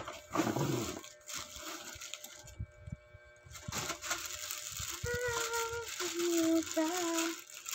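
Plastic wrapping rustling and crinkling as plastic-wrapped hula hoop segments are pulled out and handled, in several short bursts. Past the middle, a few held notes step down in pitch and break off.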